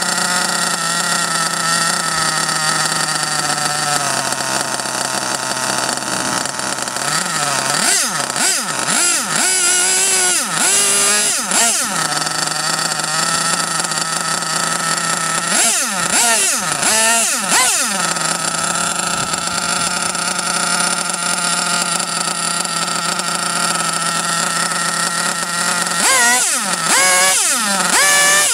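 .28 nitro RC buggy engine running on the bench out of the chassis, idling steadily during a tune-up. Its throttle is blipped in short runs of revving, rising and falling in pitch, about a third of the way in, around the middle, and again near the end.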